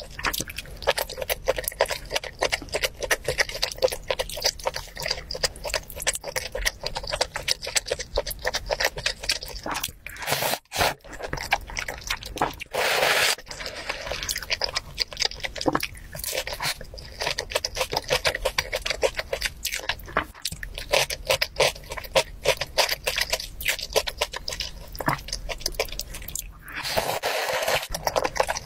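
Close-miked eating sounds: a person chewing and crunching food with steady small wet clicks. A longer slurp comes about halfway through, and another near the end as soup is sipped from a spoon.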